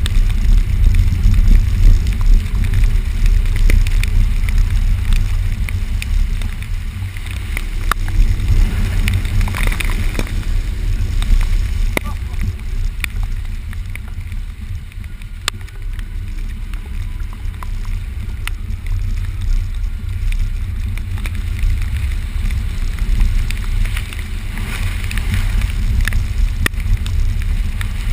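Subaru Forester driving along a rough, wet dirt trail, heard from inside the car: a steady low rumble with scattered knocks and clunks from the bumps.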